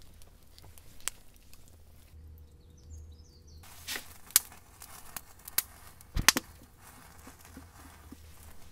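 A few sharp clicks and knocks from a hard plastic cooler being opened and rummaged in, the loudest knocks about four and six seconds in.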